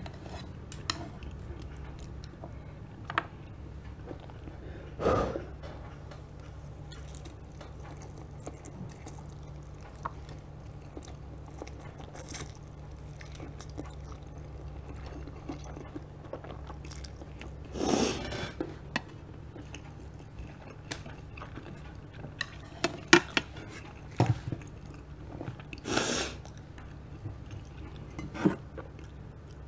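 A person chewing and slurping spicy instant noodles, with small clicks of chopsticks on the plate and a few short, louder slurps. A steady low hum runs underneath.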